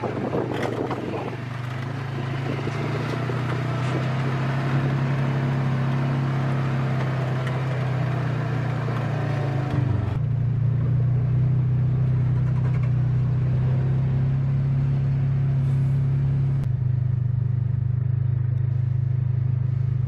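Vehicle engine running with a steady low hum, heard from inside the cab while driving, with a hiss of road noise over it. The sound changes abruptly about ten seconds in and again near seventeen seconds.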